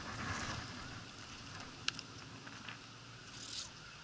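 Magnet-fishing rope being worked by hand, scraping as it runs over the dock's edge, with a few light clicks.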